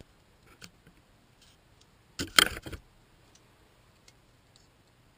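A steel speargun shaft and its riveted flopper being handled in the hands: a few faint metal ticks and one brief, loud clatter of clicks a little over two seconds in.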